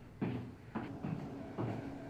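Footsteps on a staircase: three dull footfalls at a walking pace.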